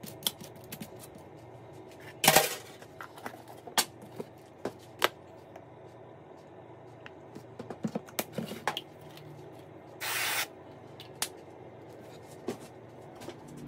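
Scattered clicks and knocks of food and utensils being served onto a plate, with a sharp clatter about two seconds in and a short hiss about ten seconds in. Under it runs the steady hum of a loud microwave oven.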